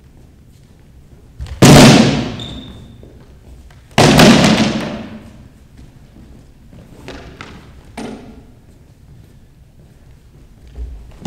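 Swords striking round wooden shields in a sword fight: two loud blows about two and a half seconds apart, each echoing in a large sports hall, then a few lighter knocks.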